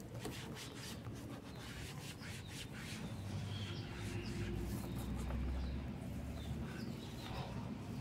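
Gloved hand rubbing plastic-restorer paste into the dry, faded plastic panels of a Honda Biz scooter: a soft, irregular scuffing, with a low rumble about halfway through.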